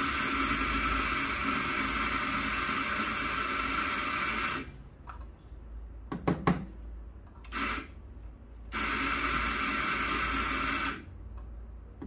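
Eureka Mignon Specialita electric burr grinder running and grinding coffee beans, first for about four and a half seconds, then after a pause a short blip and about two seconds more. A few sharp knocks fall in the pause.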